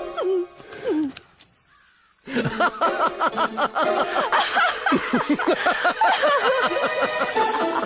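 Many voices laughing together, dense and overlapping, breaking out about two seconds in after a brief hush.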